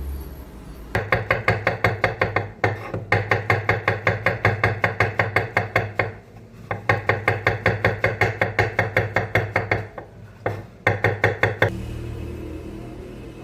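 Knife chopping rapidly on a cutting board, about four or five strokes a second, in several runs with short pauses between them.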